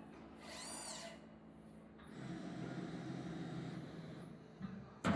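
CNC press brake working through a bend: a low machine hum, a short whine that rises and falls about half a second in, and a sharp, loud metallic clank near the end.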